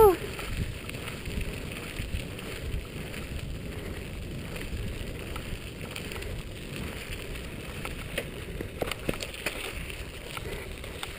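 Steady rolling noise of a dog scooter's tyres over a gravel forest road, with wind on the microphone. A few light knocks come about eight to nine seconds in.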